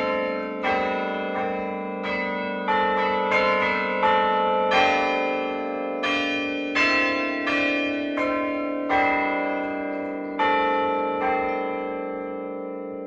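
Church tower bells struck one after another, about one to two strikes a second, each note ringing on under the next. The strikes stop about ten seconds in and the bells ring out, fading away.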